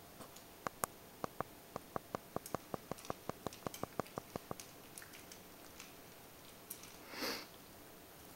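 Westie puppy eating from its bowl: a quick, regular run of sharp crunches, about four a second, that stops after a few seconds, then one short sniff near the end.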